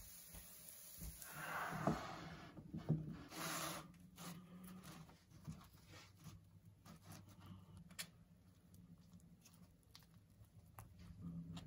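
Quiet kitchen handling sounds: soft scraping and rustling as toasted bread slices are pressed and moved on a griddle and a wooden cutting board, loudest in the first few seconds, then scattered faint clicks and taps as coleslaw is spread on the toast with a plastic spoon.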